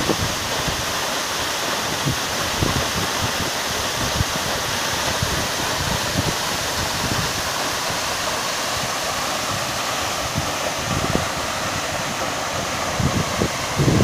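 Dalfazer waterfall: a steady roar of water falling down a rock face and splashing, heard from close below.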